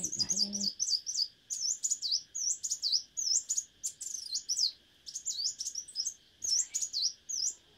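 Leafbird (chim xanh) singing a fast, varied run of short high chirps and sweeping notes in bursts with brief pauses, over a steady faint hiss.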